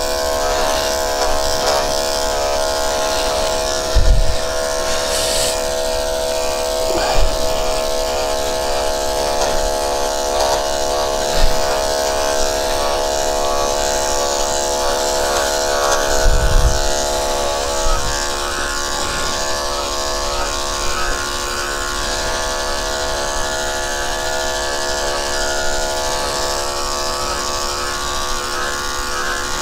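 Electric dog-grooming clippers running with a steady buzzing hum. A few short, low bumps come now and then.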